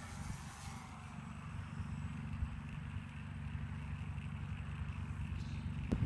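Radio-controlled Fokker D7 scale model biplane flying past at a distance, its motor a faint steady drone under a steady low rumble of wind on the microphone.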